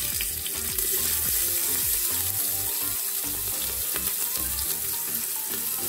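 Chopped garlic and onion sizzling in hot olive oil in an aluminium pressure cooker, a steady frying hiss just after they have been tipped into the pan.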